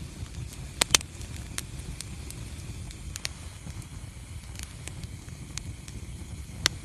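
Wood fire burning in a fireplace: a steady low rumble of flames with scattered crackles, and a few sharp pops, two about a second in and one near the end.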